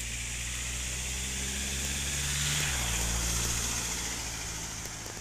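A motor vehicle's engine running and passing close by, growing louder to a peak about three seconds in and then easing off, its engine note shifting about halfway through.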